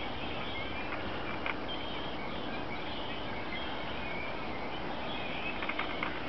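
Birds chirping faintly: short, high calls scattered over a steady outdoor hiss, with a few soft footsteps in snow near the end.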